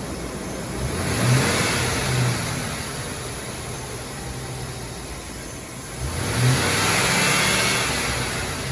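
Engine of a 2004 Chevrolet Express 3500 van running and revved twice: a quick rev about a second in that falls back toward idle, then a second rev around six seconds in, held a little longer before easing off.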